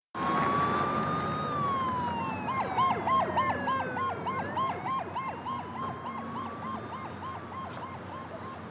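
Police car siren: a slow wail that falls and then rises again, overlapped by a fast yelping tone repeating about three to four times a second, slowly growing fainter.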